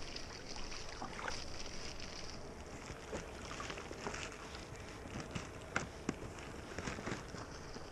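Faint, scattered small splashes and drips of kayak paddles in calm water beside inflatable packrafts, over a steady low hiss.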